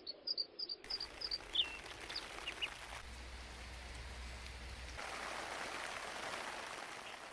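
Rain falling, a steady hiss that grows louder about five seconds in. A small bird chirps repeatedly over the first couple of seconds.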